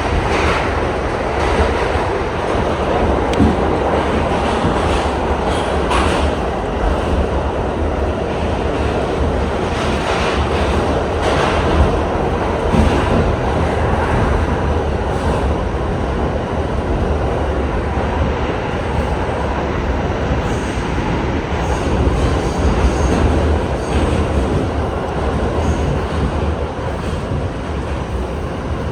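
R68 subway train running along the track, a steady rumble of wheels and motors with occasional clicks from rail joints.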